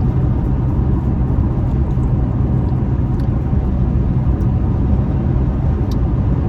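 Steady low rumble of road and engine noise inside a car's cabin while driving, with a few faint ticks.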